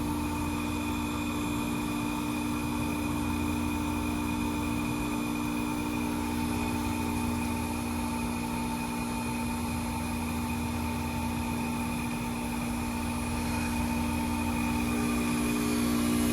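2004 Carrier Comfort 10 heat pump outdoor unit running with a steady mechanical hum, getting slightly louder near the end.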